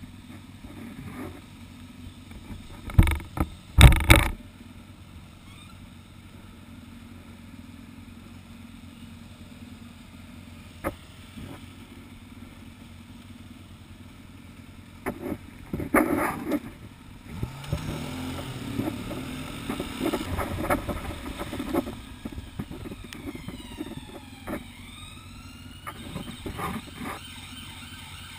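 Motorcycle and scooter engines idling at red traffic lights, heard from a motorbike, with a steady low rumble. There are two loud knocks about three and four seconds in, and engines rev up and down for a few seconds past the middle.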